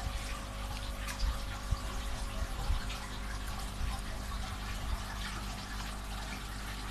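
Churned water splashing and trickling steadily in a koi tub, with small irregular drips, over a steady low hum.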